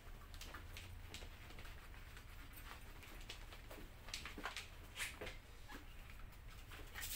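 Cloth wiping over a KYT racing helmet's shell, a faint run of short, irregular rubbing strokes over a low steady hum.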